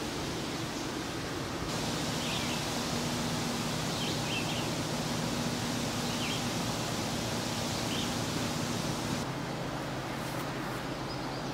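Woodland outdoor ambience: a steady hiss with a few short, high bird chirps every second or two. The hiss gets louder about two seconds in and drops back near the end.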